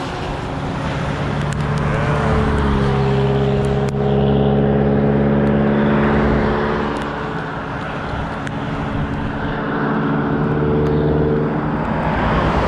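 A motor vehicle's engine drones at a steady pitch for most of the stretch, rising slightly at first and then holding level before fading out near the end, over a constant hiss of wind and wet-road noise.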